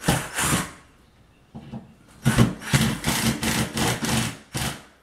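Cordless impact driver driving drywall screws into a ceiling patch: a short burst at the start, then a longer pulsing run of about three seconds.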